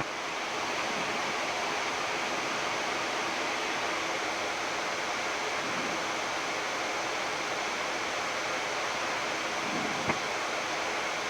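Steady rushing hiss of a Boeing 787-10 flight deck in flight on descent, with a single click about ten seconds in.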